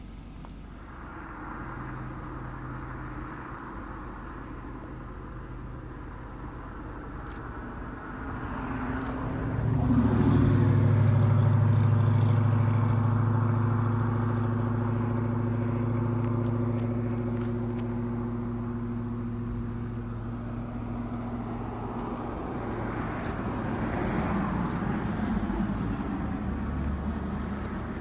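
Motor vehicle engine running nearby with a steady low hum. It grows louder about ten seconds in, then slowly fades, and swells again more faintly near the end.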